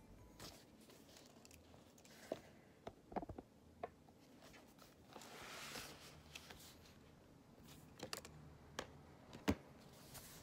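Quiet room with scattered small taps and clicks of a pen and paper being handled at a desk, and a soft papery rustle about five seconds in; the sharpest click comes near the end.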